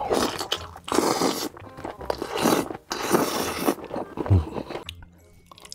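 A person slurping saucy spicy noodles with loud, long sucking pulls, four of them in the first four seconds, with a short low thump just after the last, then chewing more quietly.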